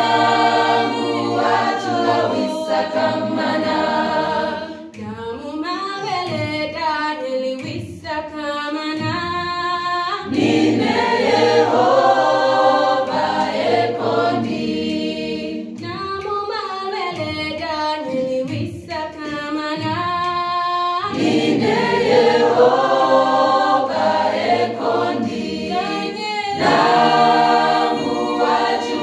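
Church choir singing a song a cappella, several voices in harmony, in phrases with short breaks between lines.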